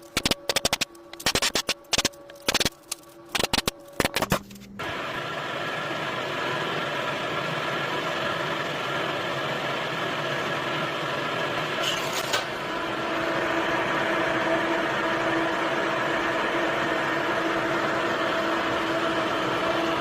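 A quick run of sharp knocks and taps on wood, then a small electric motor-driven tool starts and runs steadily with a humming whine, its tone shifting slightly about halfway through.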